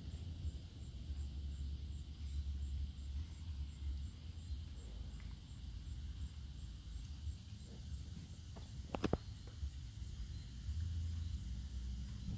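Lau Ultra 20 box fan switched off and coasting in a long spin-down, its slowing blades giving a low steady rumble. A few sharp knocks come about three-quarters of the way through.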